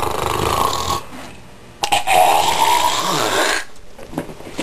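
A person making two long, rough, rude noises with the mouth and throat as an answer in place of words. The first lasts about a second, and the second, about a second later, lasts nearly two seconds.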